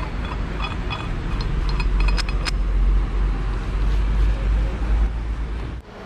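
Wind rumbling and buffeting on the microphone high up the tree, growing louder through the middle. Around two seconds in come a few sharp metal clinks from the rope shackle being handled.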